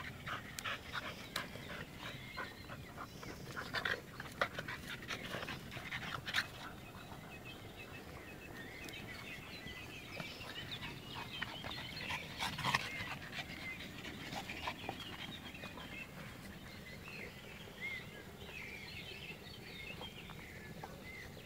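Dogs panting as they play: an American bulldog, a French bulldog and a bull terrier. A run of short sharp clicks and scuffs sounds over the first six or so seconds.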